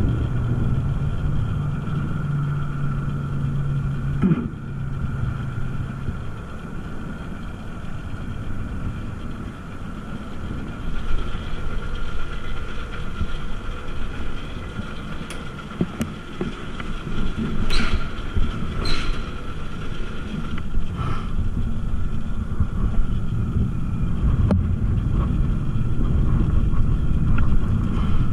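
Motorized bicycle's small engine running while riding, under heavy low wind rumble. A steady low engine tone fades out about six seconds in, and a few sharp clicks and rattles come about two-thirds of the way through.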